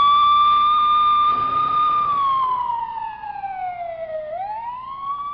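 Fire department rescue van's siren wailing: one pitch held steady for about two seconds, then sliding slowly down and rising back up near the end.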